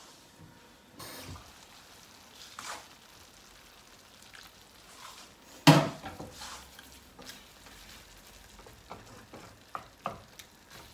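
Glass pot lid set down with one loud clank a little past halfway, followed by light knocks and scrapes of a wooden spatula stirring chicken pieces in a pan of lightly simmering juice.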